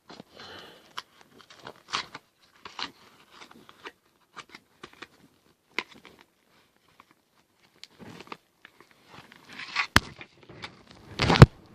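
Small scattered clicks and rustles of hands handling a plastic solderless breadboard and pushing leads into its contacts, with a few sharper, louder knocks near the end.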